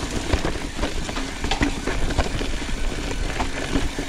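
YT Izzo trail bike rolling fast over rough dirt singletrack: a steady rumble of tyre and trail noise with an irregular clatter of knocks and rattles from the bike.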